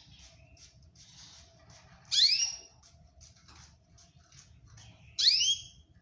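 A cage bird gives a loud, rising whistled call twice, about three seconds apart, over faint constant chirping from other birds.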